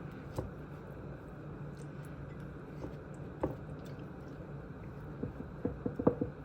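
Pastry brush dabbing butter onto risen bread dough: soft, wet taps here and there, several in quick succession near the end, over a low steady hum.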